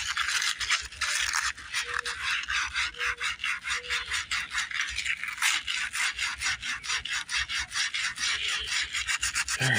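Sandpaper rubbed by hand back and forth round the steel crankshaft end of a three-horsepower Briggs & Stratton engine, in quick rasping strokes several a second. The crank is being cleaned up so the starter clutch cone will slide on.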